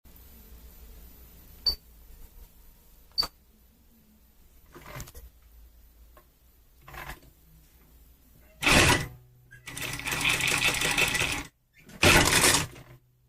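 Sunstar KM 235-AS computerized industrial lockstitch sewing machine: two sharp clicks early, then about eight seconds in, three bursts of fast stitching, the middle one the longest at about a second and a half, with a low motor hum under the later bursts.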